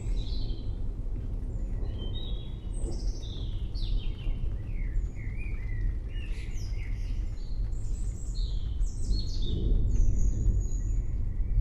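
Forest birds chirping, many short overlapping calls and quick whistled glides from several birds at once, over a steady low rumble.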